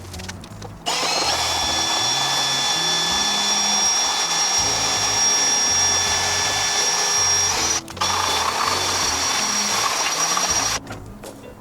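A power tool spinning a sanding drum, grinding down the plastic ribbing of a car's centre console, with a steady high whine. It starts about a second in, cuts out briefly near eight seconds, and stops shortly before the end. Background music with low notes runs underneath.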